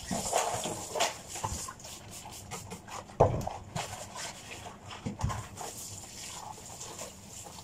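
Dishes being washed by hand in a sink: plates and utensils knocking and rubbing under gloved hands, in short irregular clatters, with a louder knock about three seconds in.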